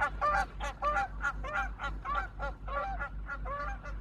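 A flock of birds calling without pause: short, overlapping pitched calls, several a second, over a low steady hum.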